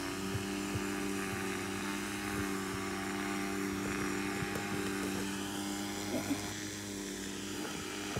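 A steady electrical hum holding several even tones, with a few faint short ticks and taps scattered through it.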